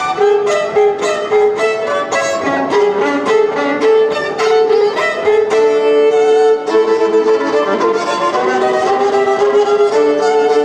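Violin playing an instrumental interlude between sung verses: a quick succession of short notes, often two sounding at once.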